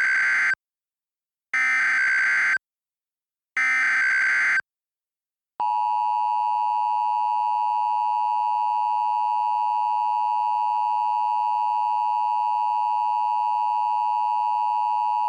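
Emergency Alert System header tones: three short data bursts of about a second each, a second apart, then a steady attention tone held for about ten seconds that cuts off abruptly. This is the signal that opens an emergency alert broadcast, ahead of the spoken warning.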